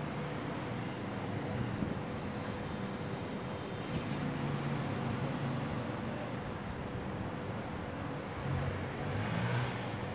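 Steady hum of city road traffic, with low engine rumble from passing vehicles swelling about four seconds in and again near the end.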